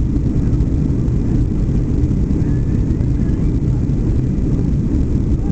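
Steady low roar inside the cabin of a Boeing 757-200 climbing through cloud after take-off: its jet engines and the airflow over the fuselage, unchanging throughout.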